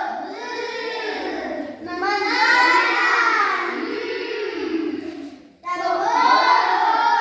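A group of young children answering together in a drawn-out, sing-song chorus, sounding out a word or letter sound in three long phrases.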